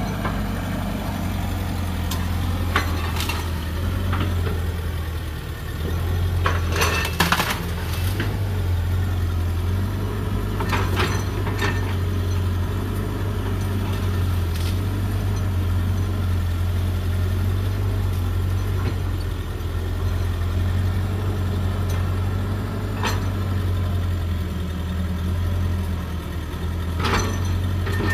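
Hydraulic excavator's diesel engine running with a steady low drone, broken now and then by sharp metal clanks and knocks. The knocks are loudest about seven seconds in and come again near the end.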